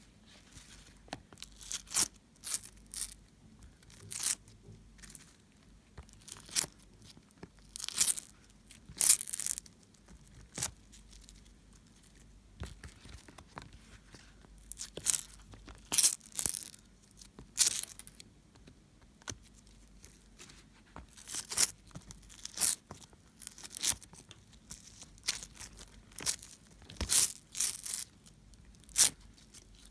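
Homemade slime being squished and stretched by hand, giving irregular sticky crackles and pops in short clusters with quiet gaps between.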